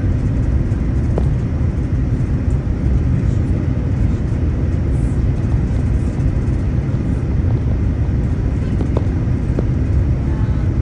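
Steady low rumble of a Boeing 787-9's engines and rushing air, heard inside the passenger cabin during the descent on approach to landing, with a few faint ticks.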